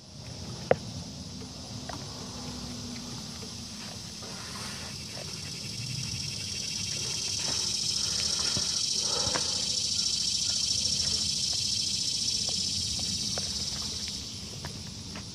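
A steady, high-pitched insect chorus that swells for several seconds in the middle and fades near the end, with scattered small clicks and knocks of metal parts being handled.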